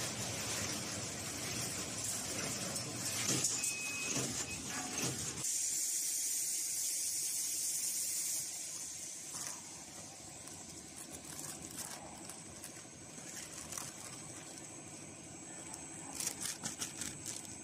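Multihead-weigher vertical packaging machine running with a steady mechanical noise. It cuts off abruptly about five seconds in, giving way to quieter plastic crinkling as a filled chips bag is handled, with a burst of sharp crackles near the end.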